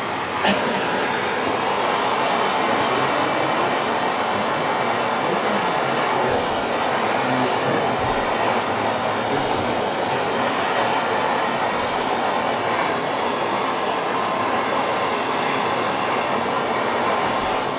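Handheld gas torch burning with a steady hiss, its flame heating a soldered brass lamp part to reflow and wipe off excess solder.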